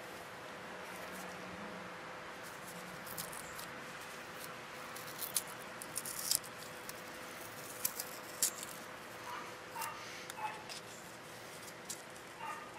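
Small clicks and crackles of fingers handling a plastic Dexcom sensor and its film dressing, and a few short high whimpering cries from an animal in the last few seconds.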